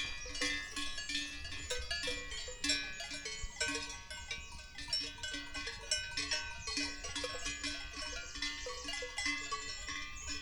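Several livestock bells clanking and ringing irregularly and overlapping, as from a grazing herd.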